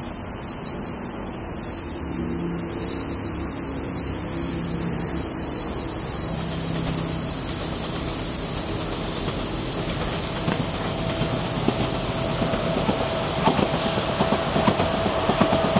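Insects drone steadily and high-pitched throughout. In the second half a JR 383 series electric express train draws near and runs past, its running noise growing louder with a steady whine and quick clicks of wheels over rail joints.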